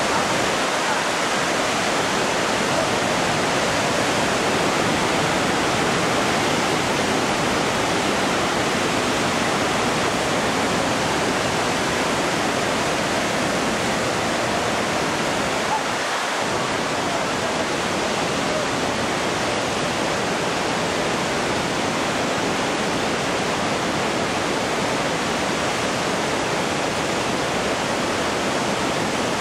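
Muddy, high river churning through rocky rapids: a steady, dense rush of whitewater.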